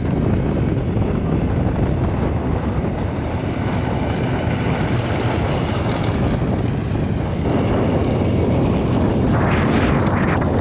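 Strong wind buffeting the microphone on open lake ice: a steady rumbling rush with no pitched tone, gusting stronger about seven seconds in.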